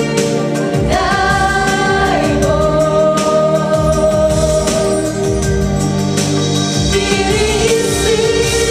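A group of girls singing together into microphones over an instrumental accompaniment, holding long notes.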